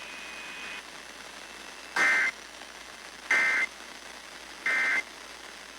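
Emergency Alert System SAME end-of-message signal: three short, identical bursts of two-tone warbling digital data about 1.3 s apart, over faint hiss, marking the end of a weather warning broadcast.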